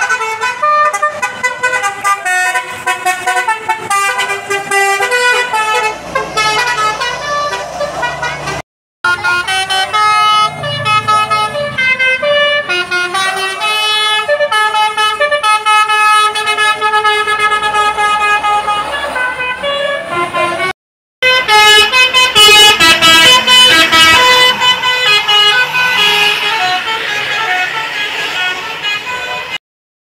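Basuri 'telolet' multi-tone bus horns playing quick melodies, note after note stepping up and down. Three long runs are each broken off abruptly, and the last run is the loudest.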